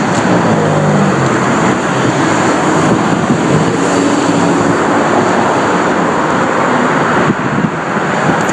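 Steady noise of road traffic, cars driving past close by.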